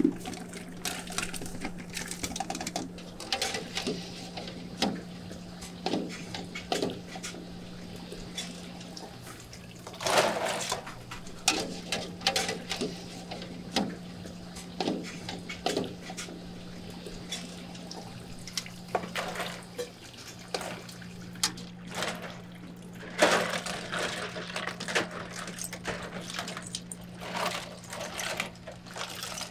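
Water splashing and sloshing as scallops are handled in water, in many short irregular splashes with two longer, louder ones about ten and twenty-three seconds in. A steady low hum sits underneath.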